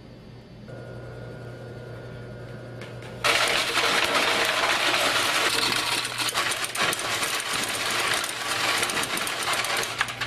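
Gravelometer at work: a machine hum comes on about a second in. From about three seconds in, a sudden loud, dense clatter follows as a charge of gravel is blasted against a film-covered test plate inside the cabinet, with many sharp stone impacts.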